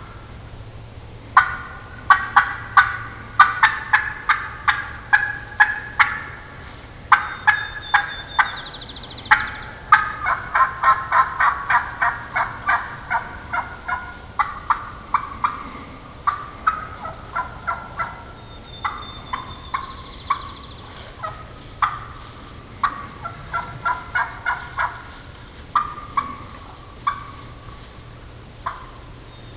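Wild turkey hen calling excitedly: runs of sharp, fast cutting clucks mixed with yelps, several notes a second, broken by short pauses.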